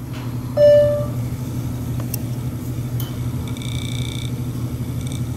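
A steady low background hum, with a short, clear, loud tone about half a second in and a fainter high tone near the end. A few light clicks come in between.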